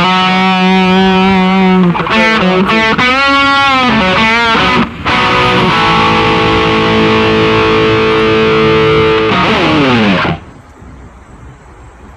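Loud distorted electric guitar playing long held notes, with some bent notes, a brief break about five seconds in, and a falling slide before it cuts off about ten seconds in.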